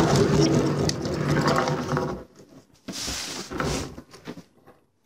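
A homemade egg-incubator cabinet being turned round on its caster wheels on a tabletop: a rumble for about two seconds, then a short scraping about three seconds in.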